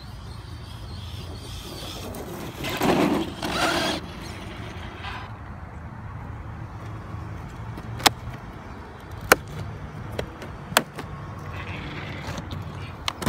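1/8-scale brushless RC monster truck (DHK Maximus) running: a loud noisy rush of the truck passing about three seconds in, then several sharp knocks spread over the rest.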